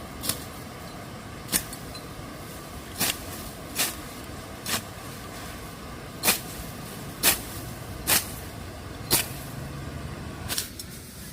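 A series of about nine sharp knocks, struck irregularly about a second apart, over a steady background hum.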